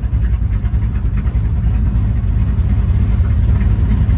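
Car engine and road noise while driving: a steady low drone with a light rise in level near the end.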